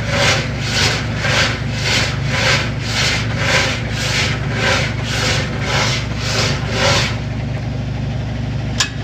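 Washing machine making a loud, rhythmic scraping noise, about two strokes a second, over a steady low motor hum; this is the fault noise the washer is being repaired for. The scraping stops about seven seconds in while the hum goes on, and there is a single sharp click near the end.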